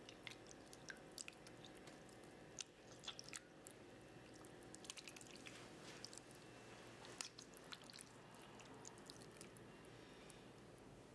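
Faint wet squelching of canned whole tomatoes being crushed and squeezed by hand, with scattered small irregular clicks and squishes.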